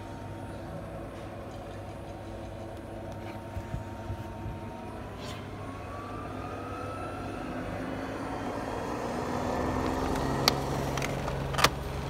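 AEG washing machine's drum spinning empty in the service-mode spin test, the motor's whine rising in pitch and the sound growing louder as the drum speeds up. Two sharp clicks near the end.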